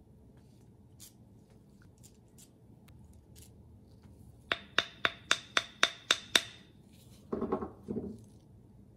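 Small metal carburetor parts being handled during disassembly: a quick run of eight sharp, ringing metallic clicks, about four a second, followed near the end by a brief rustling scrape.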